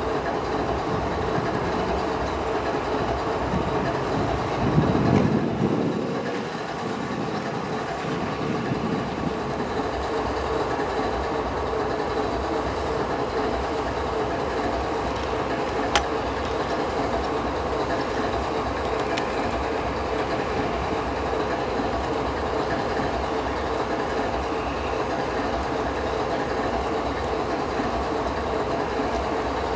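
Freight train rolling steadily, its cars' wheels clicking and rumbling over the rails, with a louder swell about five seconds in and a single sharp click midway.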